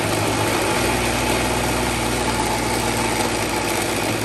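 Single-serve blender motor running steadily at full speed, blending chickpeas, tahini and lemon juice into hummus.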